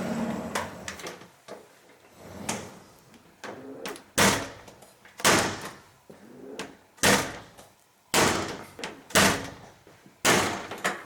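Two-panel folding bathroom door of a unit bath being worked open and shut, rubbing and scraping, then knocking sharply about once a second, six times. This is the loud abnormal noise and hard catching of a folding door that is out of adjustment.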